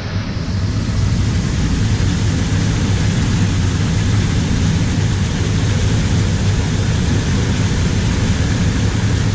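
Water rushing steadily out of a culvert and cascading into a concrete drainage ditch, a loud, even rush with a deep rumble.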